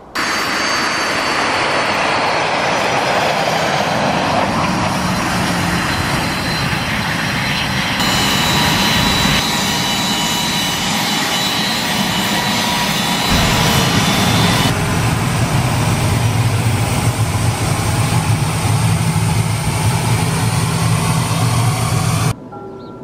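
Business jet turbofan engines at close range, a steady rushing noise with a high whine, in several cut-together clips that change abruptly; a deeper hum joins about halfway through, and the sound cuts off sharply near the end.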